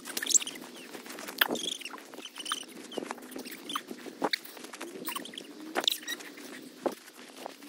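Footsteps crunching in fresh snow, a run of short, uneven crunches.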